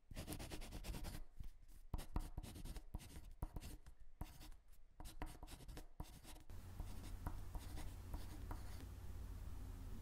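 Pen scratching across paper in quick, uneven strokes for about six and a half seconds, then stopping, leaving only a faint low hum.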